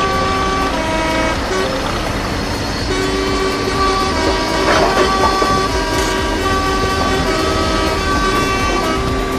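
A tune of held horn-like tones that step from pitch to pitch every half second or so, over a steady low rumble, with a brief noisy swell about five seconds in.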